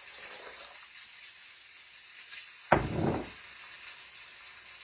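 Steady sizzling hiss from a hot pot of broth and tomatoes on the stove, with one sharp knock a little past halfway, like a utensil or cup striking the pot, that rings briefly.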